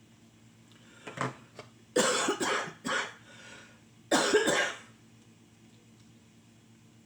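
A person coughing in short, harsh bursts: a small cough about a second in, a loud run of coughs around two to three seconds, and another loud cough about four seconds in.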